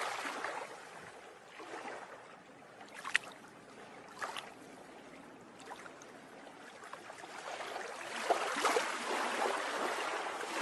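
Water lapping and trickling, like gentle sea or stream water, with a couple of soft sharp ticks early on and growing louder toward the end.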